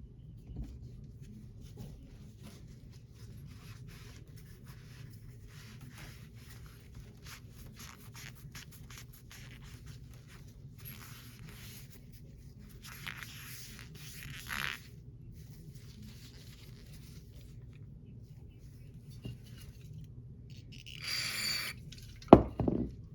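Carburetor float bowl being cleaned by hand: faint scraping and rubbing throughout, short hissing sprays of aerosol carburetor cleaner around the middle and again near the end, then one loud clunk just before the end.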